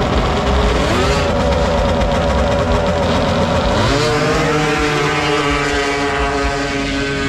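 Race snowmobiles revving at a grass drag start, then launching down the strip. The engines' pitch rises steeply about four seconds in and then holds high as they pull away.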